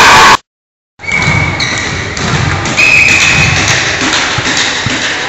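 Loud shouting and cheering from a volleyball crowd, cut off abruptly. After a brief dead gap comes the sound of an indoor volleyball court: two short high squeaks and a few dull thuds of a ball near the end.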